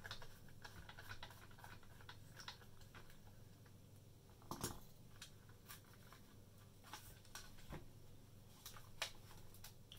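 Scattered light clicks and knocks of hard plastic parts of a Dyson vacuum powerhead being handled and its clipped-on back piece worked at, with one sharper knock a little under halfway through.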